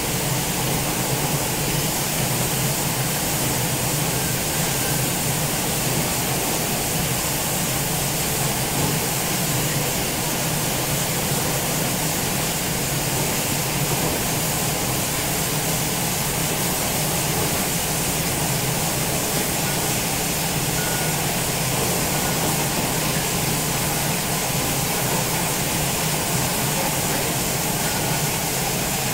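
Automatic 1 ml syringe assembly machine and its parts conveyor running: a steady, unbroken mechanical noise.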